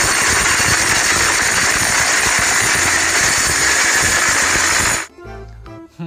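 Loud, steady helicopter-like whirring rush with a fluttering undertone, starting abruptly and cutting off suddenly about five seconds in.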